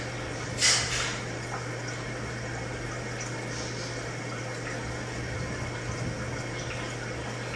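Aquarium aeration bubbling and water noise, steady, over a steady low hum from the pump. About a second in comes one brief, louder burst.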